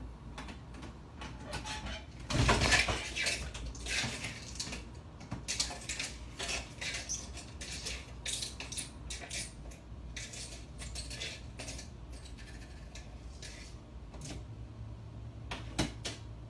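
Metal mail-slot flap in a front door clattering and clacking over and over as a cat paws at it and pushes it open. The loudest clatter comes about two to three seconds in.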